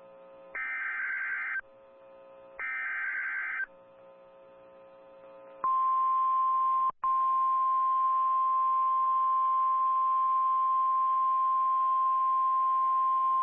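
NOAA Weather Radio Emergency Alert System alert: two screeching digital SAME header data bursts, each about a second long and a second apart, then the 1050 Hz warning alarm tone starts about six seconds in and holds steady, with a brief break a second after it begins. The sequence signals a weather warning about to be read.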